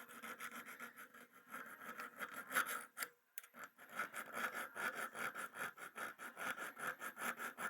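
Diamond grit flat file scraping back and forth over the steel jaw edge of mid-1940s Kraeuter diagonal cutters, sharpening the cutting edge. A short pause about three seconds in, then quick, even strokes, about four a second.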